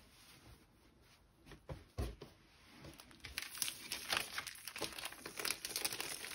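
Plastic mailing bag crinkling as it is handled, starting about three seconds in after a couple of soft knocks.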